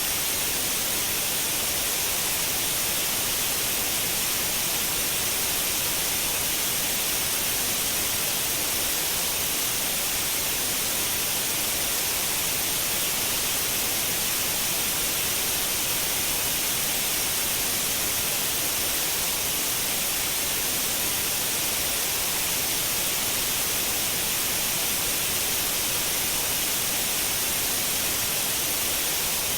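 Steady white noise: an even, unchanging hiss, brightest in the high end.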